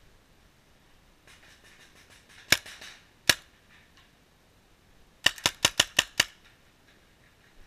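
Paintball marker firing: two single shots less than a second apart, then a quick string of six shots in about a second.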